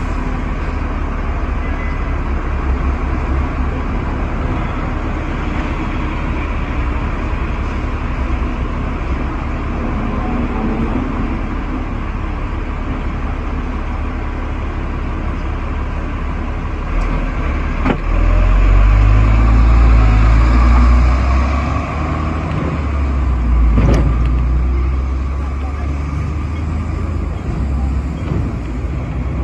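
Sixth-generation teak-bodied Hong Kong double-deck tram running along its street tracks, heard from inside: a steady low running rumble with road traffic around it. The rumble gets louder from about 17 to 22 seconds in, and there is a single knock about 24 seconds in.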